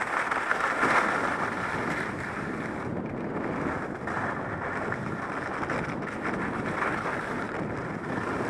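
Skis sliding and scraping over packed snow, the scrape swelling and easing every second or two, with wind rushing over the microphone.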